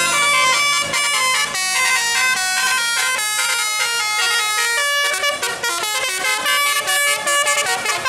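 Bus 'telolet' musical air horn on a tour coach playing a fast melody of short, rapidly changing notes.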